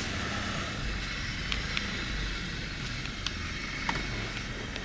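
Mitsubishi Montero Sport driving slowly over a dirt campground track, heard through an open window: a steady low engine and tyre rumble with a few faint ticks from the gravel.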